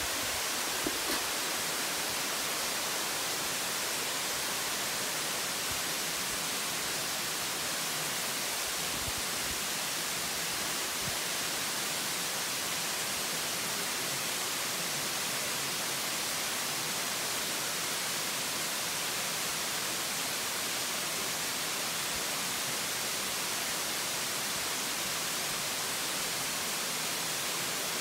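Water of a rocky cascading waterfall rushing steadily, an even hiss.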